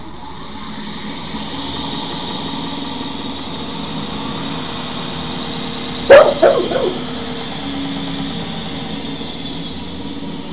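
Variable-speed belt grinder running steadily, its motor and spinning belt getting a little louder over the first two seconds. About six seconds in, a dog barks about four times in quick succession, the loudest sound.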